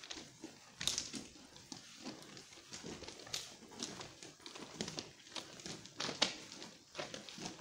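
Footsteps of people walking through a stone railway tunnel: irregular scuffs and taps, several a second, with some echo.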